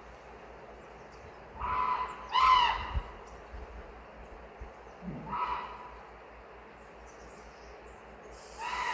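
Common raven giving four short calls, two in quick succession about two seconds in, then one near the middle and one near the end; the second call is the loudest. Under them runs the steady rush of a stream.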